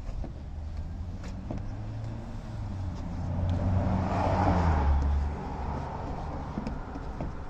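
A car driving past, its engine hum and tyre noise swelling to a peak about four to five seconds in and then fading away.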